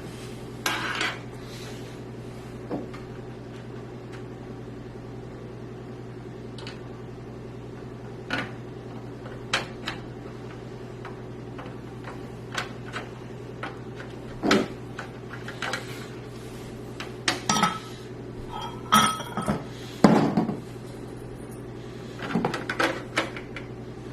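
Scattered clicks and light metallic clinks of small screws and a screwdriver working against a PC case, with the clinks coming thicker in the second half, over a steady low hum.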